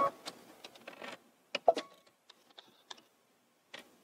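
Scattered light clicks and soft rustles of hands handling fabric at a sewing machine, with small thread scissors snipping.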